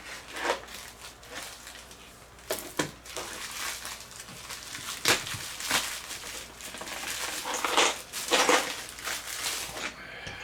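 Packaging of a delivered parcel being handled and opened: irregular crinkling, rustling and crushing noises with a few sharper scrapes.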